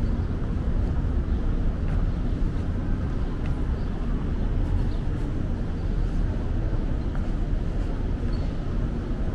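Steady low rumble of outdoor city ambience, with a few faint clicks scattered through it.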